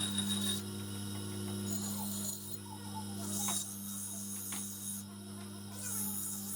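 A low, steady electrical hum with a faint hiss, and two light clicks a few seconds in.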